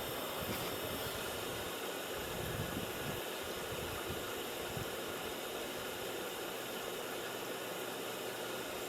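Dell Optiplex GX620 desktop computer running just after power-on, its fans giving a steady hiss as it starts to boot on a newly fitted power supply.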